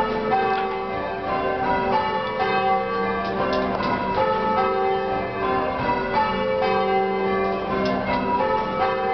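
Cathedral church bells being change-rung by hand, heard from the ringing chamber: a continuous, even run of overlapping bell strikes, one bell after another in rows.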